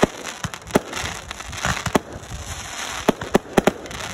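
Aerial fireworks bursting: a string of sharp bangs over steady crackling, the bangs coming quicker near the end.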